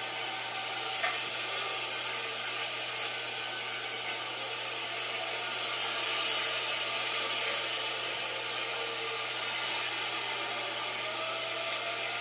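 A steady, fairly loud hiss, with an outdoor tornado warning siren wailing faintly beneath it, one of its tones rising in pitch near the end.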